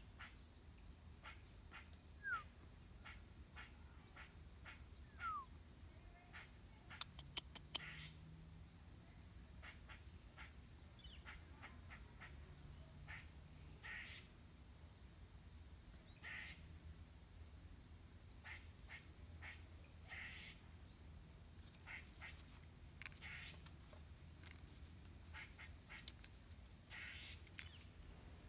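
Faint woodland ambience: a steady high insect drone, with scattered faint clicks and a few short chirps throughout.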